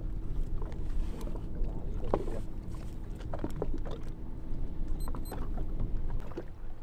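Small fishing boat's engine running with a steady low rumble, with wind and water noise and occasional knocks on board.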